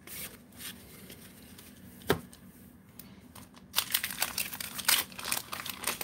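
A trading card pack wrapper crinkling and tearing as it is opened, dense rustling that starts about three and a half seconds in, after a single sharp click about two seconds in.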